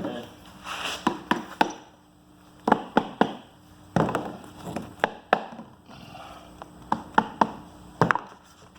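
Irregular sharp knocks and taps of wooden boards being handled, knocked into square and clamped on a workbench, about a dozen in small clusters.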